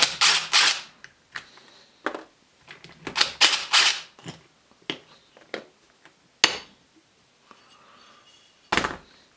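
Cordless impact driver rattling in short bursts as it backs out the end-plate bolts of a triplex plunger pump, with light clicks between bursts and another loud burst near the end.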